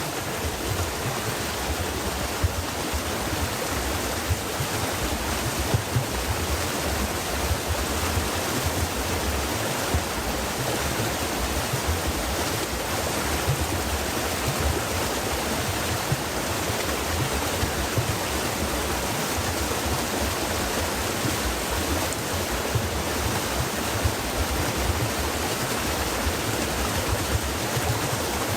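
Stream water flowing and splashing over stones: a steady, full rushing with small irregular splashes, and a fluttering low rumble.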